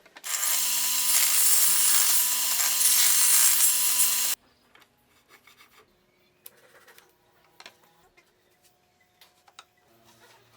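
Saw cutting through wood: a loud, steady rasping hiss that starts suddenly and cuts off abruptly after about four seconds. Faint knocks and clicks follow.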